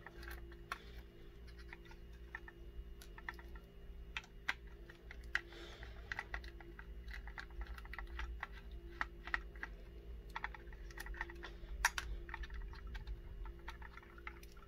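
Irregular light clicks and scrapes of a small precision screwdriver working at screws on a Ring video doorbell's circuit board and plastic housing, with a few sharper clicks. A steady low hum runs underneath.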